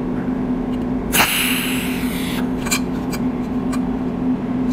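Cold welding machine spot-welding the ends of a copper wire: a steady hum, with a sharp crack about a second in that runs into about a second of hiss, then a few light ticks.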